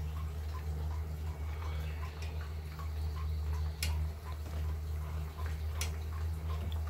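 Steady low hum with a faint, even ticking about two and a half times a second, and two sharp clicks about two seconds apart as cooking chopsticks knock against a saucepan.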